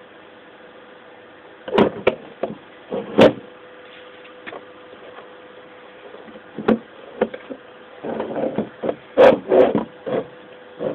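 Handheld camera handling noise: irregular knocks and rubs. Two come about two to three seconds in, a few single ones follow, and a dense cluster runs from about eight to ten seconds in, over a faint steady hiss and hum.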